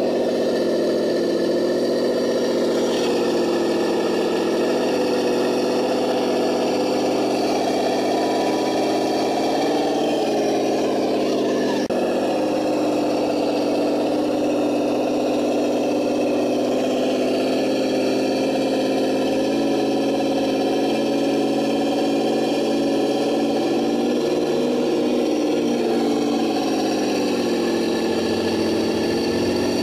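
Simulated engine sound from an ESS-One sound module in a Vatera K5 Blazer RC crawler, played through its small on-board speaker: a steady, idle-like engine note whose pitch dips and rises slightly a few times.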